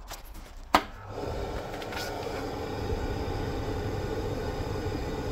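A sharp click, then the Gerkros kerosene boiler's oil burner motor and fan start up and run steadily: the burner going through its start sequence, not yet lit.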